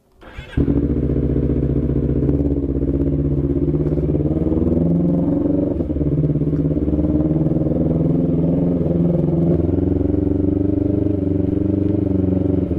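Honda CBR250RR parallel-twin engine started on the electric starter about half a second in. It catches at once and then runs steadily at low revs as the motorcycle pulls away slowly.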